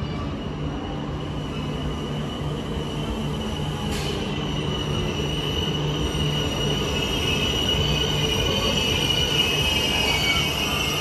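A train running on the rails, with a steady rumble and low hum, and a high-pitched wheel squeal that grows louder in the second half.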